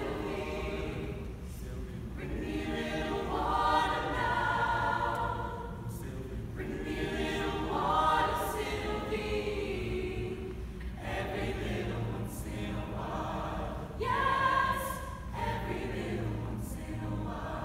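Mixed high school choir singing in swelling phrases of a few seconds each, several voice parts together.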